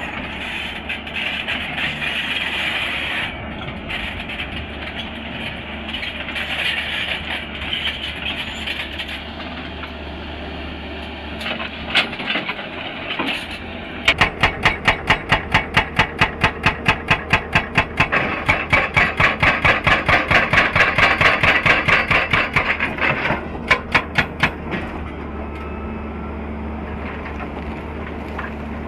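Excavator engine running steadily. About halfway through, a hydraulic rock breaker starts hammering rock in rapid, even blows, about three to four a second, for roughly ten seconds, then stops with a few last strikes while the engine runs on.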